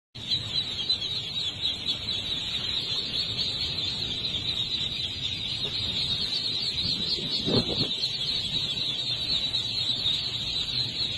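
A huge crowd of ducklings peeping all at once, a dense, steady chorus of high chirps. A brief lower call stands out about two-thirds of the way through.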